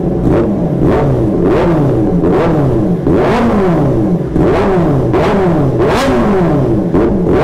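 Kawasaki ZX-10R inline-four engine, breathing through a freshly fitted BMC air filter and an SC-Project slip-on exhaust, revved in quick repeated throttle blips. The engine note rises sharply and falls back each time, roughly every half second.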